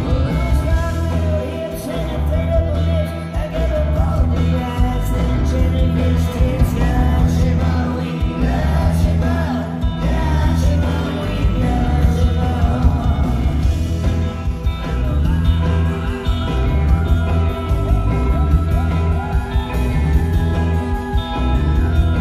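Live rock band playing through a concert PA, heard from the crowd: electric guitars, bass and drums with sung vocals.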